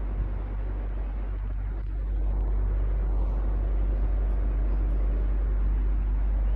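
Electric fan running: a steady whoosh of moving air over a strong low rumble, growing a little louder about two seconds in.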